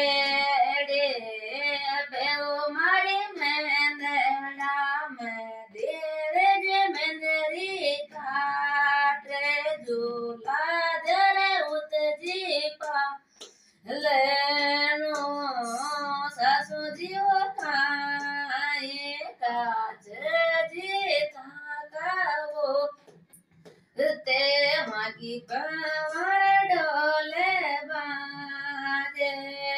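A woman singing a bhajan (Hindu devotional song) solo and unaccompanied, in long melodic phrases, breaking off briefly twice for breath.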